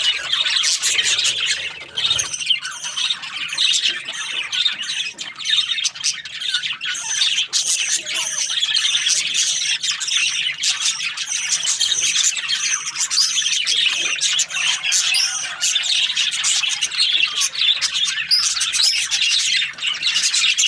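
Budgerigars chirping and squawking without pause, many short calls overlapping.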